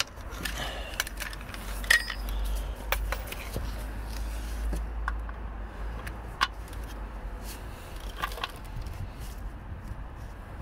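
Ratchet wrench and socket extension tightening an oil sump plug: scattered metallic clicks and clinks at irregular intervals.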